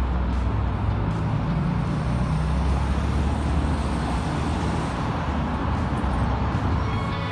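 City road traffic: cars and buses driving past, a steady low rumble of engines and tyres.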